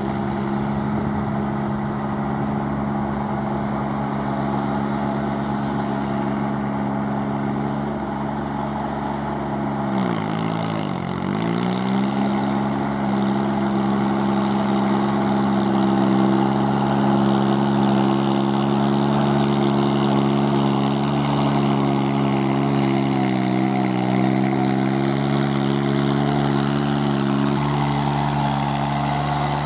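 VST Shakti MT 224-1D mini tractor's three-cylinder 22 hp diesel engine running steadily while it works a rotavator through wet paddy mud. About ten seconds in the engine speed sags for a moment and picks back up, and it dips slightly once more later on.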